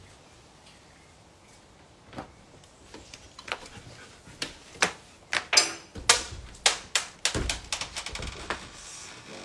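A run of sharp knocks and clatters, sparse at first, then coming quickly and loudest from about halfway, with a few heavy thumps among them.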